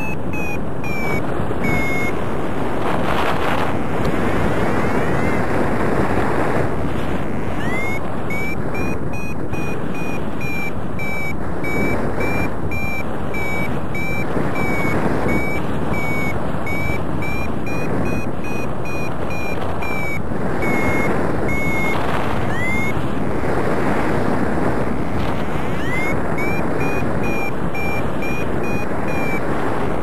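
Wind rushing over the microphone in paraglider flight, with an electronic variometer beeping in quick high-pitched pulses whose pitch drifts up and down; the beeping stops briefly a few times and comes back with a rising chirp. Vario beeping is the signal of climbing in lift.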